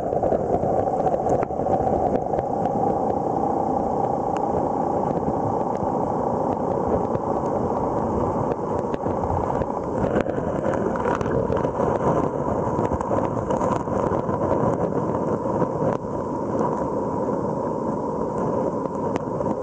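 Steady, muffled rushing and rumbling of shallow seawater, picked up by a camera submerged under water.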